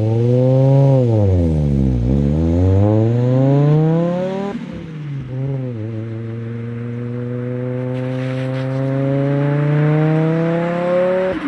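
Turbocharged five-cylinder engine of an Audi Sport Quattro replica accelerating hard away. The revs rise and fall, climb to an upshift about four and a half seconds in, then climb long and steadily in the next gear.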